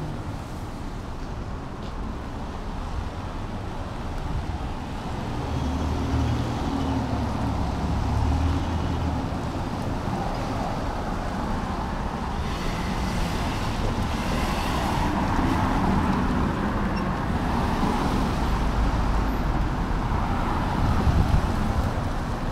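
Street traffic on a wet road: vehicles passing with tyre hiss and engine rumble. A low engine rumble comes through about five to nine seconds in, and a broad hiss swells over the second half as more traffic goes by.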